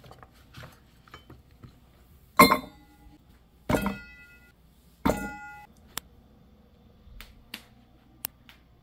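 A dish knocked three times about a second and a half apart, each knock ringing briefly like a bowl, with lighter clicks and taps between.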